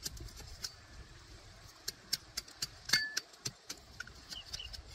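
Scattered small clicks and snaps of hands working among grass and plant stems, the sharpest about three seconds in, with a few short high chirps.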